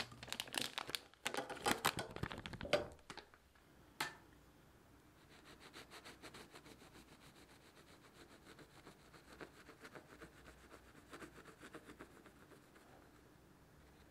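Plastic piping bag crinkling as it is handled. Then a small knife sawing lengthwise through the crust of a baked bread roll, a fast run of small scratching strokes.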